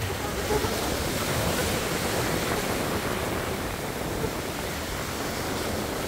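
Sea surf washing onto the shore: a steady rushing hiss that swells about a second in and then eases back.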